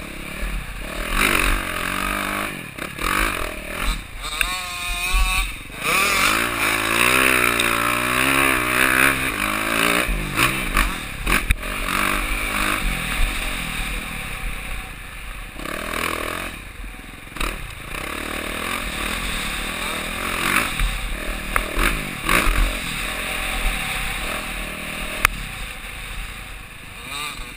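Enduro dirt bike engine, heard from the rider's helmet camera while riding a sandy track, its pitch rising and falling over and over as the throttle opens and closes, with a constant rushing noise and the odd knock or clatter from the bike over the bumps.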